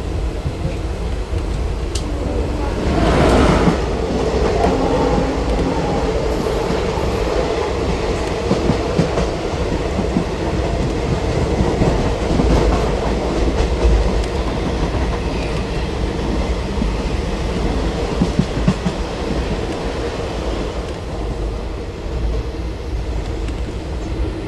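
Passenger train running along the track, heard from on board: a steady rumble with the wheels clattering over the rail joints. About three seconds in there is a brief, louder rush of noise.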